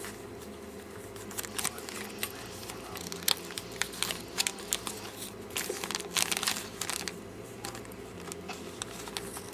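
Crinkling and rustling of plastic packaging being handled, with irregular small crackles and clicks coming in clusters.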